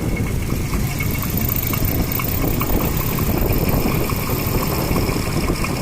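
Motor vehicle running while riding in it: a steady, loud engine and road rumble.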